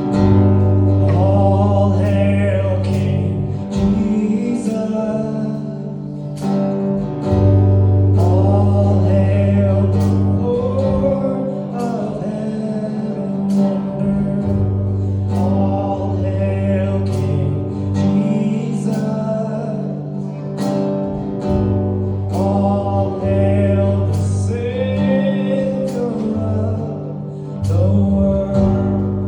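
Worship music: strummed acoustic guitar over sustained low bass notes, with a voice singing the melody.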